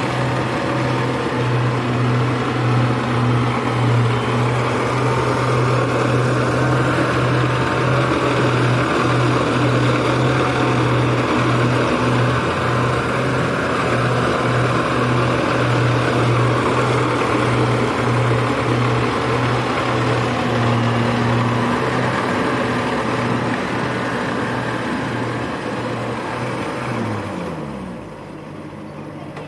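Engine of a small rice-harvesting machine running steadily under load, with a low hum and mechanical clatter. Near the end the pitch falls and the level drops as it slows.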